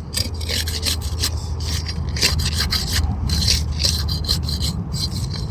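Thin flat unsealing bar scraping along an asphalt shingle's tar seal strip in quick, irregular strokes, cutting the shingle loose from the one beneath.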